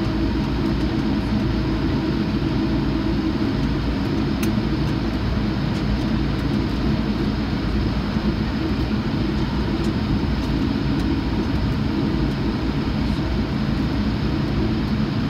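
Steady jet engine and cabin noise inside an airliner taxiing on the ground, a constant low hum.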